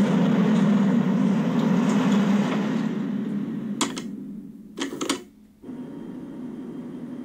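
Train carriage running noise from an anime soundtrack: a steady rumble that fades about three seconds in, a few sharp clicks around four and five seconds in, then a quieter steady hum with a faint high tone.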